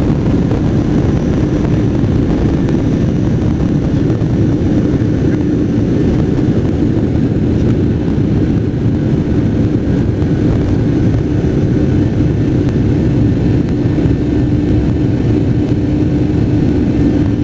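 Airplane engine noise: a steady low rumble with a constant hum running through it.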